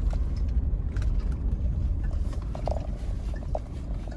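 Toyota 4Runner driving slowly over a rough dirt track, heard from inside the cabin: a steady low rumble of engine and tyres, with a few light knocks and rattles from the cab.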